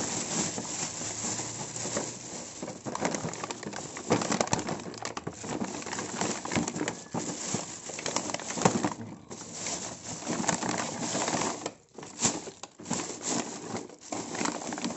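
A thin plastic shopping bag and plastic blister packaging crinkling and rustling as they are handled, in a dense run of crackles with a short lull about twelve seconds in.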